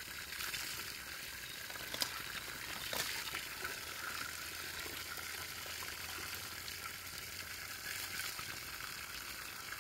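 Steady hiss of running spring water, with a couple of faint clicks.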